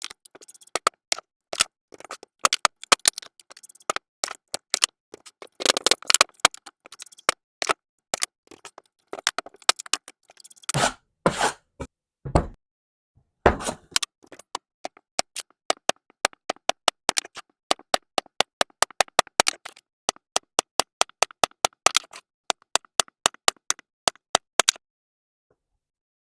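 Sharp taps, clicks and scrapes from hands-on soap-making work, in a small room. About halfway through, a fast, even run of clicks starts, several a second, and stops shortly before the end.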